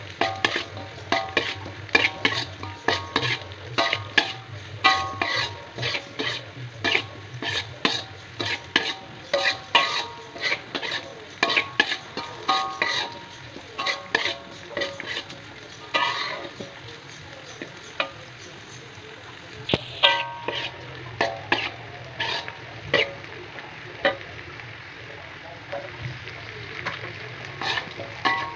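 Metal spatula scraping and clanking against a metal wok while stir-frying, each stroke leaving a short metallic ring, over a steady low sizzle of frying. The strokes come in quick runs with a few brief lulls.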